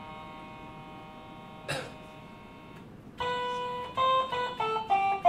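Apple IIc playing the piano voice of the DMS software synthesizer from its keyboard, with a plucked, guitar-like tone: one note held and fading, a single click partway through, then another note and a quick run of short notes stepping down in pitch near the end.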